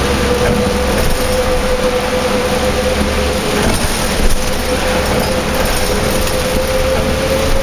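Inside a 2004 New Flyer D40LF transit bus under way: the Cummins ISL diesel and ZF drivetrain run with a steady whine that rises slightly in pitch, over a hiss of road and rain noise. A single knock about four seconds in.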